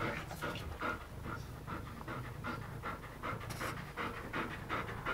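An Airedale terrier panting with short, quick breaths in an even rhythm.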